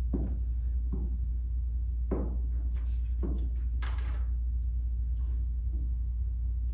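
Glue stick rubbed along construction paper and paper handled on a table, making a handful of short, soft knocks and rubs, one a brighter, hissier stroke about four seconds in. A steady low hum runs underneath.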